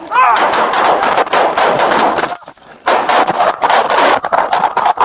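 Gunfire in a shootout between police officers and an armed man: many shots in rapid succession, a brief pause about halfway through, then a further run of shots.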